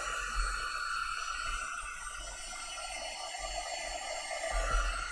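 Small handheld craft heat tool running steadily, blowing air to dry chalk paste on a silk-screen transfer.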